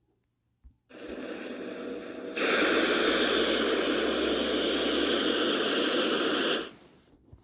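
Monster-film sound effect: a static-like hiss that starts about a second in, jumps much louder about two and a half seconds in, and cuts off near the end.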